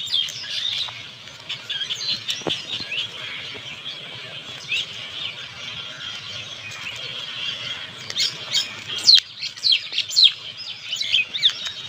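Small birds chirping and squawking in many short, quick calls, busiest in the last few seconds. A single sharp click sounds about two and a half seconds in.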